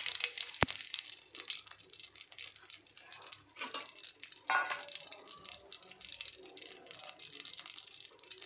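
Cumin seeds (jeera) sizzling and crackling in hot oil, a steady fine crackle with one sharp click near the start.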